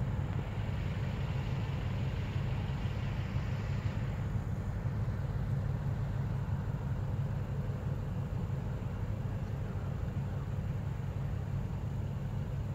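Steady low rumble of a large offshore vessel's engines as the ship passes close by, with a higher hiss that fades about four seconds in.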